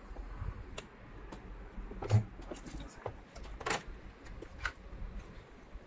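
Handling noise from work on an opened laptop: scattered small clicks and knocks, with one louder thump about two seconds in.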